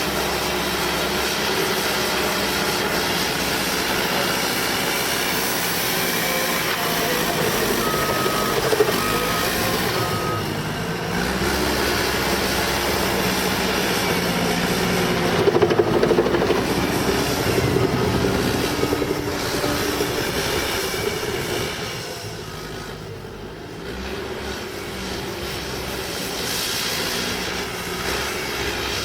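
Cat D5K crawler bulldozer's diesel engine running and working as it pushes mud, rising in load about halfway through and easing off near the end. Its backup alarm beeps three times, a second apart, about eight seconds in.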